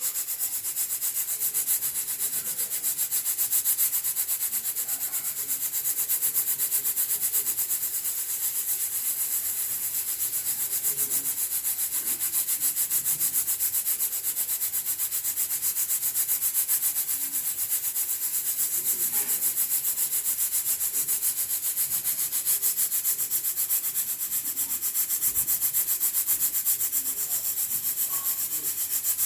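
Hawkins pressure cooker venting steam: a steady high hiss that pulses rapidly and evenly, with no clear whistle tone. Venting like this is the sign that the cooker has reached full pressure.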